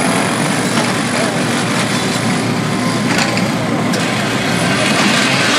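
Excavator engine running steadily amid dense street noise, with a couple of short knocks about three and four seconds in as it breaks up pavement.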